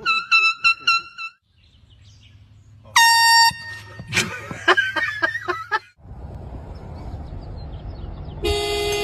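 Air horn blasts: one loud, steady half-second blast about three seconds in, and a lower-pitched horn blast of about half a second near the end.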